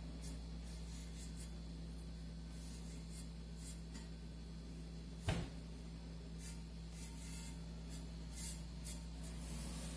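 Faint, short scratchy strokes rubbing over the vase's painted surface while the bitumen patina is lightened, with a single knock about five seconds in, over a steady low hum.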